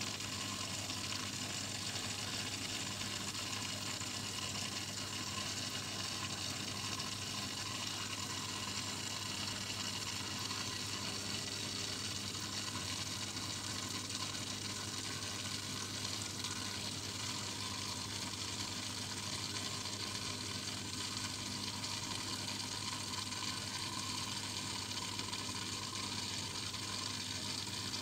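Aquarium water running and bubbling from the tank's filter and aeration: a steady watery hiss over a constant low hum.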